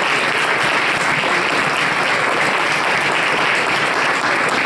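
Applause from a small audience, many hands clapping steadily.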